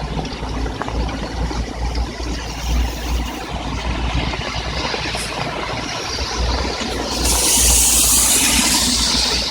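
Heavy rain falling steadily over a low road-traffic rumble. About seven seconds in, a loud hiss of tyres on the wet road rises as a vehicle passes.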